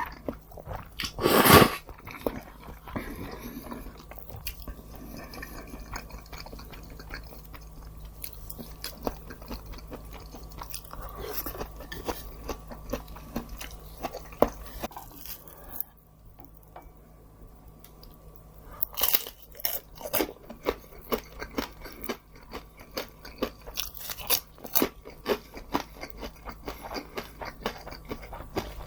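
Close-miked biting and chewing of crisp fried food, with a loud crunchy bite near the start, then softer chewing. After a short lull past the halfway point come steady, regular crunching chews.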